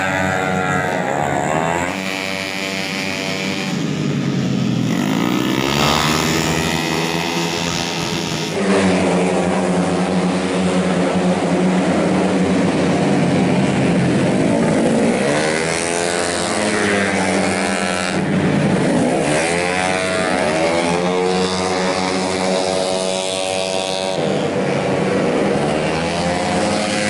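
Tuned 131cc automatic-scooter racing engines at high revs, their pitch climbing and dropping again and again with the throttle as the bikes pass, several engines overlapping.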